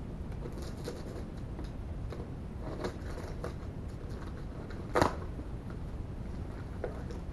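Scissors snipping through packing tape on a cardboard mailing box, with light clicks and rustling of tape and cardboard as the box is worked open. One sharp knock about five seconds in.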